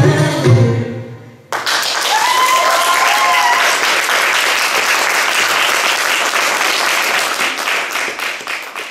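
Audience applauding, starting suddenly about a second and a half in, after recorded Arabic music fades out in the first second. A voice calls out briefly over the clapping a couple of seconds after it starts. The applause thins out near the end.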